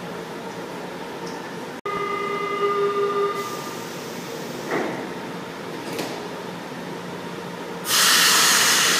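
São Paulo Metro Line 1 train at the platform: a steady door-closing warning tone sounds for about a second and a half, the doors slide shut a little later, and near the end a loud hiss of released air comes from the train.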